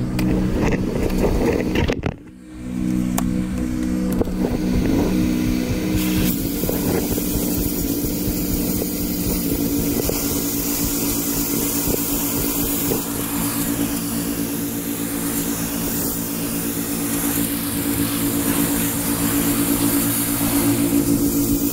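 A pressure washer's engine running steadily, with the hiss of the high-pressure water jet from the wand blasting grime off brick pavers building up from about six seconds in. The sound dips sharply for a moment about two seconds in.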